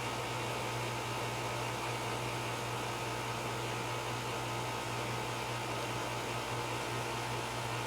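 Steady low hum with an even hiss, unchanging throughout: room tone.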